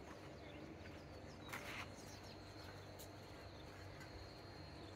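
Faint outdoor ambience: insects keep up a steady, thin, high tone. About a second and a half in there is a short burst of noise, and a faint click comes later.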